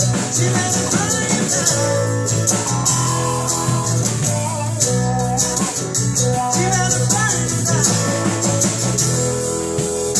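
A small live band playing a song: a strummed acoustic guitar and electric guitars over a steady beat, with a shaker-like rattle keeping time in the highs.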